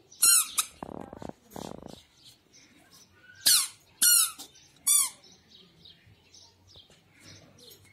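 A toddler's squeaky shoes squeaking as he climbs concrete steps: four sharp squeaks that drop in pitch, one near the start and three close together midway, with a couple of soft scuffs about a second in.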